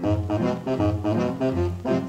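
Brass-led band music with a bouncing, evenly paced beat of short notes and a low bass line.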